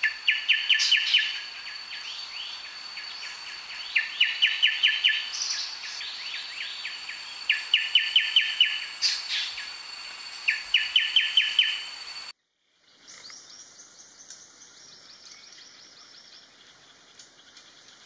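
Pin-striped tit-babbler singing: four bursts of rapid, evenly spaced notes, each about a second long, repeated roughly every three and a half seconds, over a steady high whine. After about twelve seconds the song stops, and only fainter forest ambience with a few soft high calls remains.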